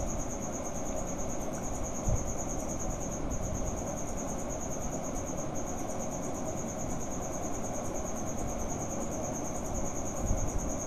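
A cricket chirping in a steady, high, finely pulsing trill, with a couple of soft knocks about two seconds in and near the end.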